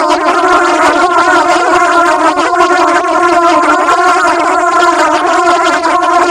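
A loud, harsh, steady buzzing drone with a stack of overtones and a rough, fluttering texture. It is a deliberately annoying noise layered over itself many times and played in reverse.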